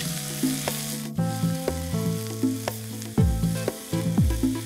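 Paneer, onion and capsicum mixture sizzling in a pan just after a little water is added, with a wooden spatula stirring and scraping against the pan. Background music with deep bass notes plays underneath.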